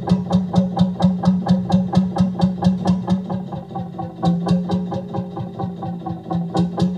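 Narrowboat diesel engine running slowly under way, a steady beat of about three and a half exhaust thuds a second.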